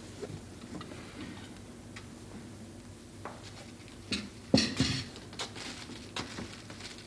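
Scattered clinks and taps of plates and cutlery at a dining table, irregular, with a louder cluster of knocks about four and a half seconds in.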